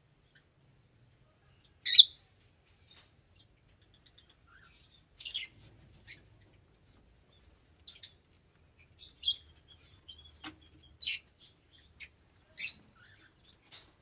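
Small pet parrots giving short, high-pitched single chirps, one every second or so, with near silence between calls; the loudest come about two seconds in and about eleven seconds in.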